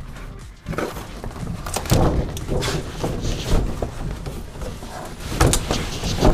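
Large paper shopping bag rustling and crinkling as hands reach in and tug at a box stuck inside, with irregular dull thumps of the box against the bag.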